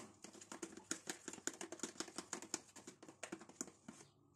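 Metal spoon clicking and scraping against a plastic tub while stirring a thick sauce: quick, faint, irregular clicks that stop shortly before the end.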